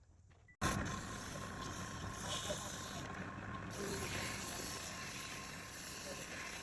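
Steady machine noise with a low hum, starting abruptly about half a second in.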